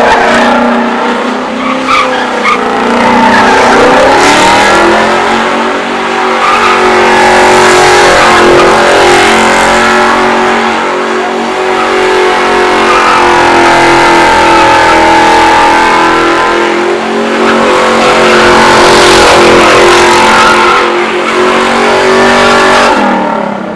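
A car's engine held at high revs, its pitch rising and falling, with the tyres spinning and screeching on pavement. It is very loud throughout and drops off near the end.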